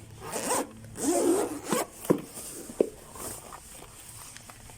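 A zipper being pulled open in two short rasping strokes, followed by a few sharp clicks and handling noises as the packaging is opened to get at the gimbal.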